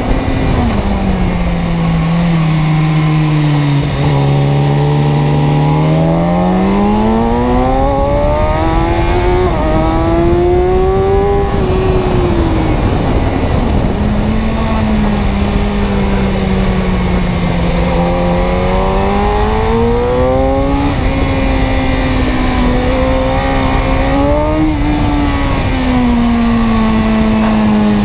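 Vehicle engine running steadily loud, its pitch sliding down, then up and down again slowly several times as the engine speed changes.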